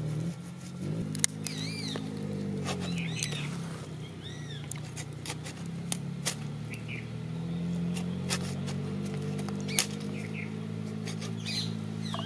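Chicken being cut into pieces on an upright fixed floor blade, with sharp clicks every second or two. High squeaky chirps rise and fall several times over a low steady drone.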